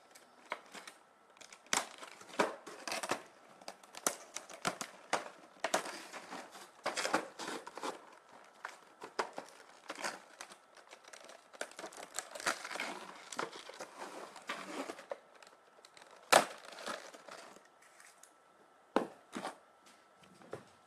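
Stiff clear plastic blister tray crinkling and crackling as the sticky tape holding it shut is undone and pulled off, in irregular spurts. One sharp click, the loudest sound, about three quarters of the way in.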